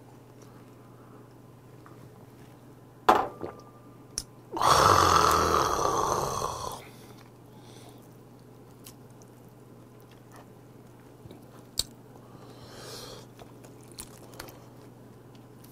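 A small metal shot cup set down with a sharp click about three seconds in, followed by a loud, raspy exhale of about two seconds after downing a soju shot. After that come faint chopstick clicks and soft chewing.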